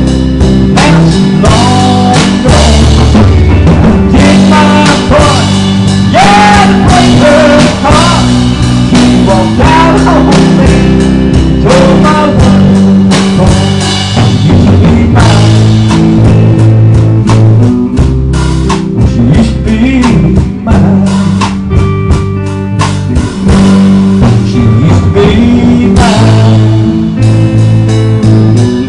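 Band music with drum kit and guitar playing an instrumental stretch, with a lead line bending in pitch during the first half.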